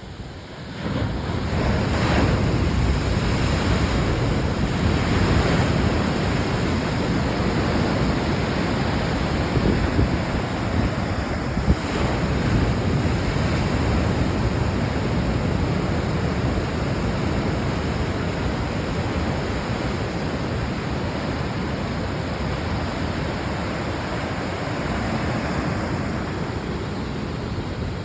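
Ocean surf, a continuous wash of waves breaking with gentle surges, and wind buffeting the microphone.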